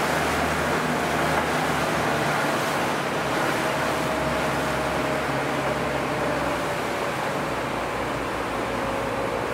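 Tour boat's engine running steadily under a constant rush of wind and water.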